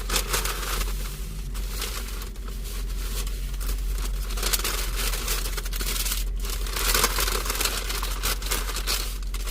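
Close rustling and crinkling of wrapping being handled, with scrapes, over a steady low hum.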